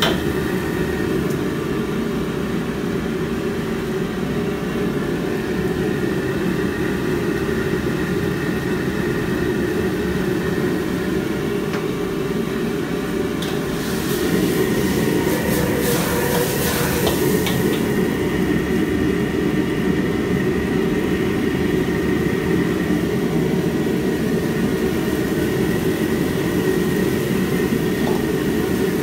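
Steady low rush of a high-output gas wok burner under a wok of stir-frying tomatoes, with a metal ladle scraping and clinking against the wok now and then. The sound gets a little louder about halfway through.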